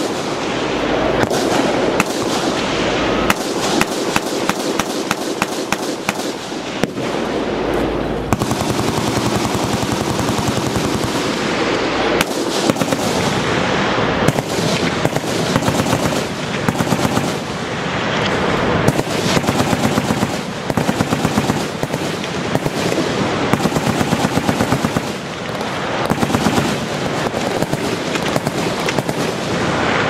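Machine guns firing full-auto: rapid strings of shots, overlapping and nearly unbroken, with brief gaps between bursts in places.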